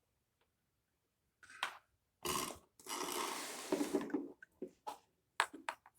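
Handling noise from marble-run pieces being worked with and fitted together: a few short rustles and clacks, then a longer rustling clatter, starting about a second and a half in.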